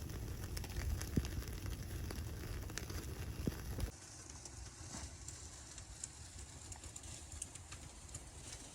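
Wood fire crackling, with scattered sharp pops over a steady hiss; about four seconds in the sound drops abruptly to a quieter hiss with faint ticks.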